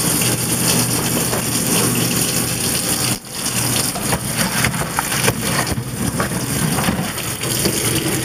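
Pot of pasta and its hot cooking water being poured into a plastic colander in a stainless steel sink: a steady gushing splash of water, with a brief break about three seconds in.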